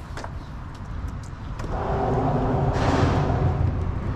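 Traffic crossing the bridge overhead, heard from beneath the deck: a steady low rumble, with a passing vehicle's tyre noise swelling up about two seconds in.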